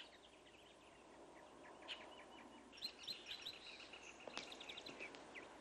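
Faint outdoor ambience: birds chirping in quick short notes over a low hiss, the chirps starting about two seconds in.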